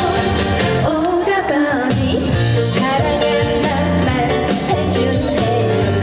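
Live trot song: a female singer singing over instrumental accompaniment with a steady, pulsing bass beat.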